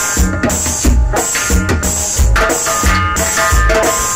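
A tropical cumbia band playing live, with drums keeping a steady beat under bass and held melodic notes.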